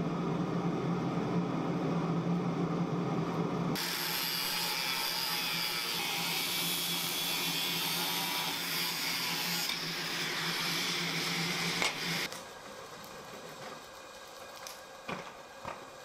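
Angle grinder with a cut-off wheel cutting through a steel bar: a loud, high hissing grind for about eight seconds that stops abruptly. Before it, a steady low machine hum; after it, a few faint clicks.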